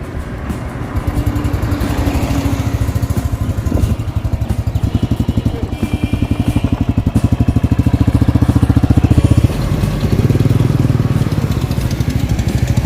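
Motorcycle engine running under way at road speed, heard from on the bike, with a rapid, even exhaust pulse. The level dips briefly about ten seconds in and then picks up again.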